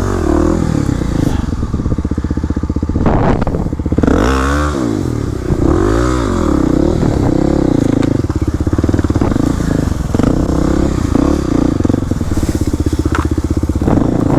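Kawasaki KLX300's single-cylinder four-stroke engine revving up and down again and again as the dirt bike is ridden, with a few sharp clicks over it.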